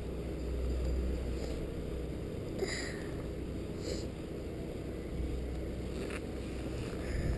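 Low, steady wind rumble on the action-camera microphone as the chairlift chair moves along the cable, with two brief soft higher sounds about three and four seconds in.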